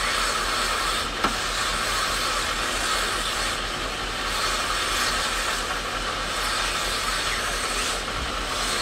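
Rock crystal (quartz) sphere ground by hand on a spinning wet grinding wheel: a steady gritty hiss of stone and water on the wheel over a low motor hum, with a small click about a second in.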